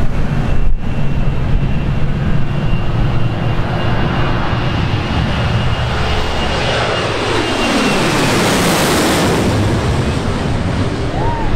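Twin-engine jet airliner taking off at full power: a steady low engine rumble with a thin fan whine, growing louder as it climbs out overhead about eight seconds in, the pitch sliding down as it passes.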